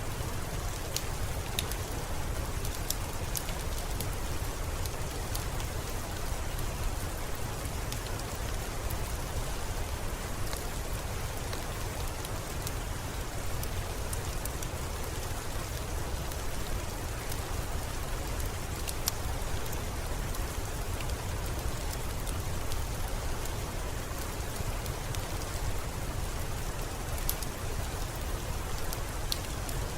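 Steady rain, with a low rumble underneath and scattered sharp crackles from a wood fire in a fireplace.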